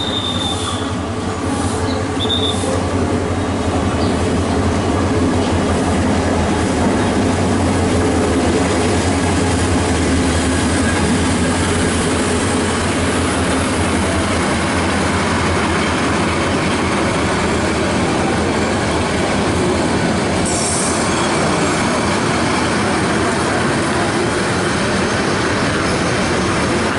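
Diesel-hauled passenger train passing at close range: the locomotive's engine drone, then the coaches rolling by with a steady rumble of wheels on rails. Short high wheel squeals sound in the first few seconds.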